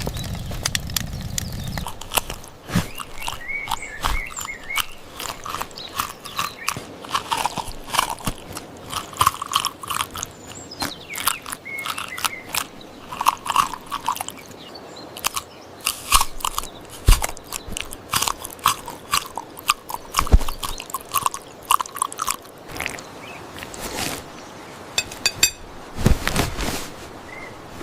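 Knife slicing and chopping crisp food: an irregular run of crunchy cuts and sharp taps.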